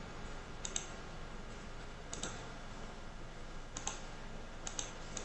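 Faint, sharp clicks, five of them spaced a second or more apart, some in quick pairs, over a low steady room hiss.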